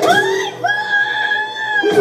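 A woman's long, shrill scream of the name 'Ivan!', rising at the start and then held at one pitch for over a second, from an animated film heard through a television's speakers.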